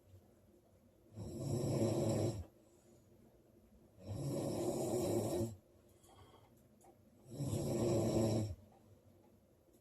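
A woman snoring loudly: three long, rasping snores, evenly spaced about three seconds apart, with quiet gaps between them.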